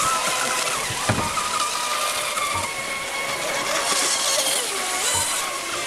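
Radio-controlled racing monohull boat running at speed: a steady high whine that wavers in pitch, over the hiss of spray off the hull.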